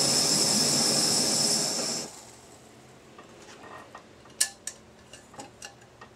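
A Peak camping stove's burner runs with a loud, steady hiss, then stops suddenly about two seconds in as its fuel is turned off. A few light metallic clinks follow, from the pot or kettle.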